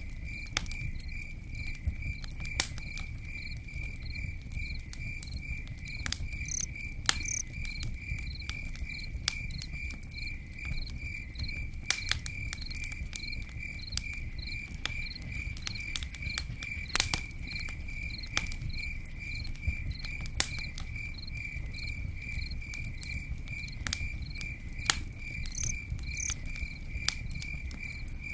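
Campfire crackling, with sharp pops scattered at irregular intervals over a steady low rumble, while an insect chirps steadily, about two high chirps a second.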